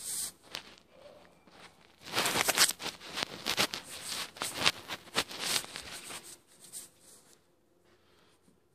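Rustling and crinkling handling noise, a dense run of crackles and rubs lasting about five seconds that starts about two seconds in and dies away near the end.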